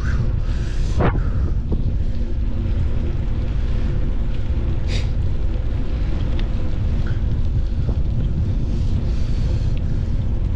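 Wind buffeting the microphone of a moving camera, a steady low rumble, with a short falling squeak about a second in and a brief high hiss about five seconds in.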